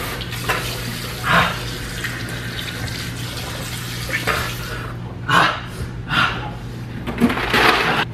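Kitchen faucet running while a man drinks straight from the stream to cool a mouth burning from a super-hot pepper chip. The water noise drops away about five seconds in, and several short loud bursts of breath and spluttering from his mouth break in along the way, the biggest near the end.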